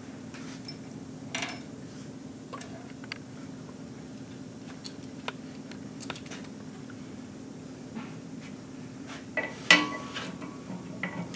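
Scattered metal clinks and clicks as a bolt-in counterweight and its bolts are fitted into a harmonic balancer on a crankshaft, the loudest clank coming about ten seconds in, over a steady low hum.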